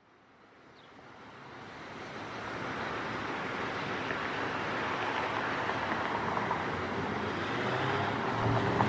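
Steady motor-vehicle and road noise fading in from silence, with a low engine hum coming through near the end.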